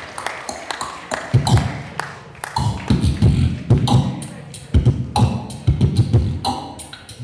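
Beatboxing into a handheld microphone, amplified over a PA: a steady rhythm of deep kick-drum thumps alternating with sharp snare and hi-hat clicks made with the mouth.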